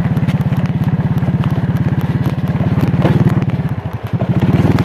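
Trail motorcycle engine running with a steady, pulsing beat as the bike is ridden, with light clicks over it. The engine note dips briefly about four seconds in, then picks back up.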